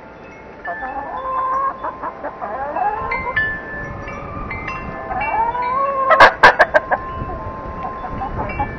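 Wind chimes ringing, with chickens calling in rising, drawn-out notes over them. A quick run of sharp clicks about six seconds in is the loudest sound.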